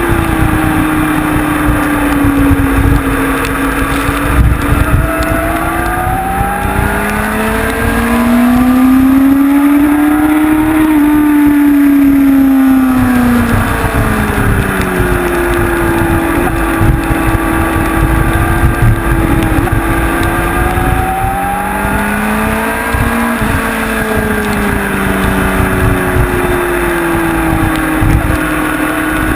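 Honda CBR inline-four sportbike engine heard from on board at track speed, its pitch climbing slowly and then falling as the bike accelerates and slows through the corners, over a steady rush of noise.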